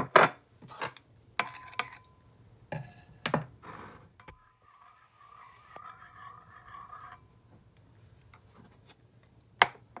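Metal spoon stirring juice in a ceramic bowl: a handful of sharp clinks against the rim and sides, then a softer scraping run around the bowl, and one more clink near the end.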